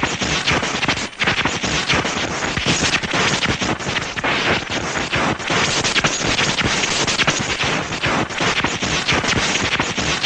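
Electric sparks sound effect: a continuous, dense crackling of rapid sharp snaps, with a brief dip about a second in.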